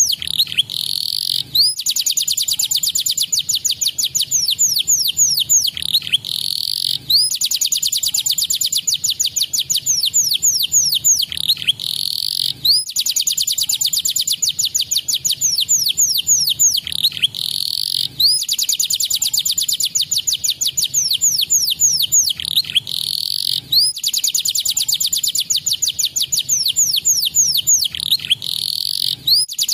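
Domestic canary singing fast, tight trills of quick down-slurred notes. The phrases are broken by short pauses about every five and a half seconds and repeat like a loop, as in a recorded song meant to provoke caged canaries into singing.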